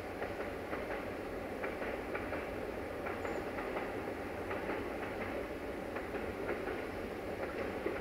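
A freight train running on the track, heard as a steady rumble with irregular light clicks of the wheels.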